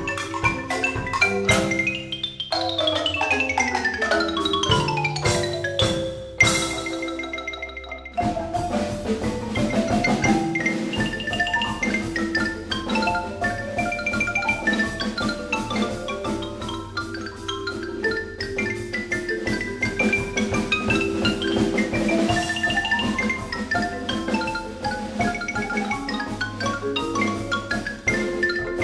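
Xylophone playing a fast ragtime-style solo over three marimbas and a drumset. About two seconds in, quick descending runs sweep down the keyboards, a cymbal crash rings out and fades about six seconds in, and then the fast, steadily pulsing passage resumes.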